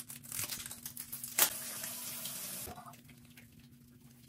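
Water running from a tap into a sink, with one sharp knock about a second and a half in; the water stops a little before three seconds in.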